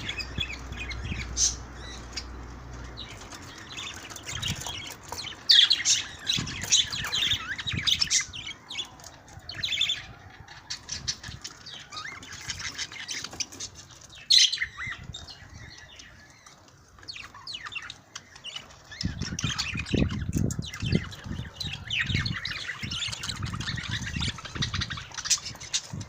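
A flock of budgerigars chattering and squawking in short high chirps, with a stretch of low thuds and fluttering in the last third.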